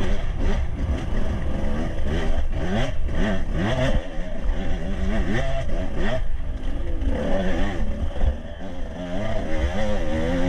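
Enduro dirt bike engine revving up and down over and over as the throttle is worked on a rough, rutted trail, the pitch climbing and dropping every second or so.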